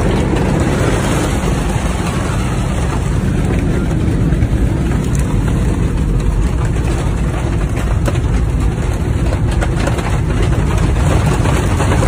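Loud, steady roar inside an airliner cabin in flight through a hailstorm, with a dense, irregular clatter of hail striking the fuselage.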